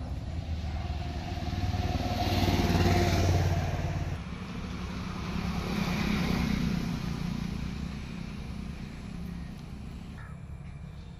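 A motor vehicle engine going by, growing louder to a peak about three seconds in, then swelling once more a few seconds later before fading away.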